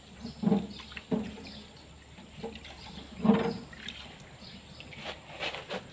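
Tractor hub parts being washed by hand in a pan of dark oily liquid: irregular sloshing and splashing of the liquid, with a few sharp metal clicks near the end.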